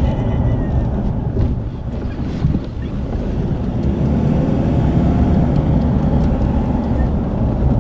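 Steady low rumble of a vehicle on the move, with some wind buffeting the microphone.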